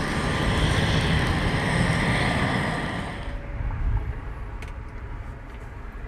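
Cessna 172's engine and propeller running, heard as a steady rumble with hiss. About three seconds in the hiss falls away and the noise drops to a lower, quieter rumble.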